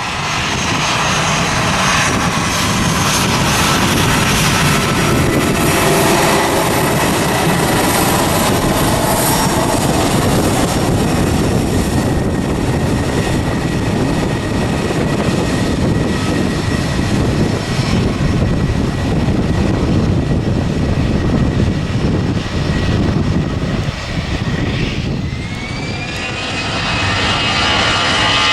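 Jet airliner's engines running loud and close: a broad rush with a steady high whine on top. Near the end the sound dips briefly and a new whine rises in pitch.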